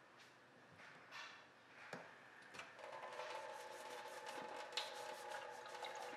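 A few light knocks as a bell pepper is handled in a stainless steel sink, then about three seconds in the kitchen tap comes on and water runs steadily, splashing into the steel sink basin.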